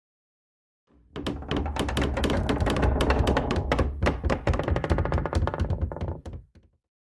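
A friction-and-stress sound effect: dense, irregular crackling clicks over a low rumble, like something rubbing or straining under load. It starts about a second in and trails off near the end.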